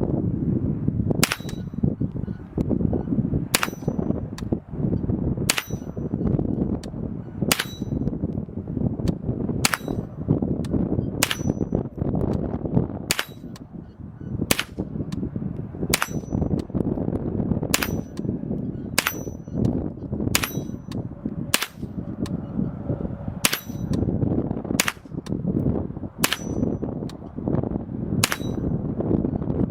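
A Chiappa M4-22 .22 LR semi-automatic AR-style rifle firing about twenty single shots at an unhurried pace, roughly one every one to two seconds. Each crack carries a short metallic ring. Wind noise on the microphone runs underneath.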